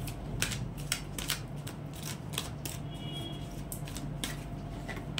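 A deck of tarot cards being shuffled by hand: an irregular run of light clicks and slaps, several a second, as the cards strike one another.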